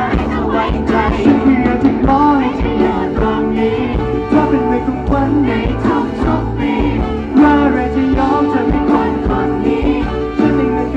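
Pop song performed live: a male singer's voice over loud backing music with a steady beat, recorded from the audience on a fan's camera.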